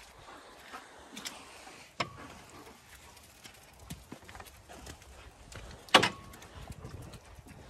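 Footsteps on a gravel farm path, with two sharp metal clanks from galvanised gates, about two seconds in and, loudest, about six seconds in, each leaving a short metallic ring.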